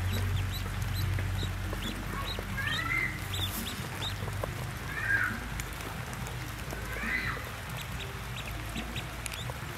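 Newly hatched ducklings peeping: many short high peeps, with a few louder arched calls. A low steady hum underneath stops about a third of the way in.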